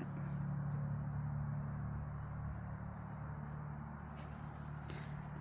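Insects trilling in a continuous high, steady chorus, with a low steady hum underneath.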